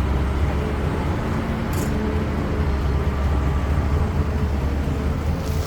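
CAT 320D excavator's diesel engine running steadily with a low drone, with one short hiss about two seconds in.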